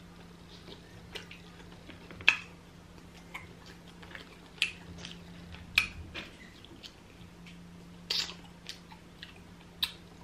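Close-miked mouth sounds of someone eating grilled mackerel with their fingers: scattered wet smacks and clicks of chewing, over a faint steady hum.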